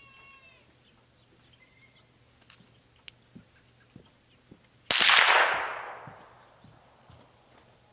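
A single .22 LR rifle shot from a Mossberg 702 Plinkster about five seconds in: a sharp crack followed by an echoing tail that dies away over about a second and a half.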